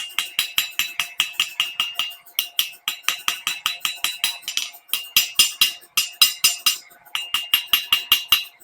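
Forging hammer striking a hot Damascus knife blade on an anvil, about four to five blows a second in runs broken by brief pauses, each blow followed by a high metallic ring.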